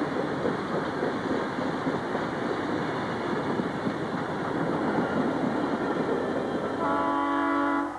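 Freight cars of a passing freight train rolling by, with a steady rumble and rattle of wheels on rail. In roughly the last second a steady multi-note ringing tone comes in over it, then the sound cuts off suddenly.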